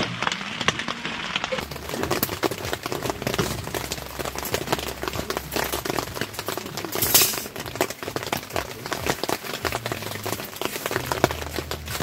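Rain pattering on the fabric of a tent, heard from inside: a dense, irregular patter of drops, with a brief louder rustle about seven seconds in.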